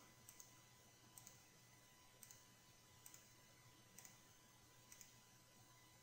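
Faint computer mouse clicks, six of them about a second apart, each a quick press-and-release pair, made while selecting edge loops one by one.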